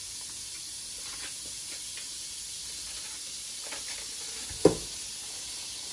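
Steady hiss on the stovetop, with one short knock about four and a half seconds in as a block of butter is dropped into a hot frying pan.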